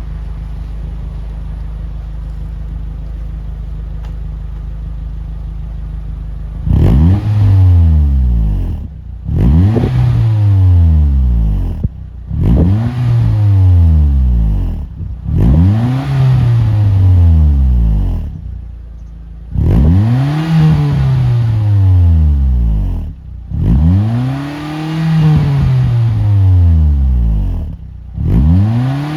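Car engine idling through an APEXi aftermarket tail silencer (exhaust muffler), then revved about seven times from about seven seconds in. Each rev rises quickly in pitch and falls back toward idle.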